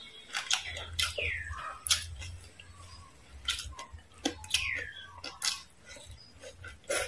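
Close-up chewing of crispy deep-fried frog, with sharp crunches and clicks from the mouth scattered through. Twice a short chirp falls in pitch, about a second in and again a little past the middle.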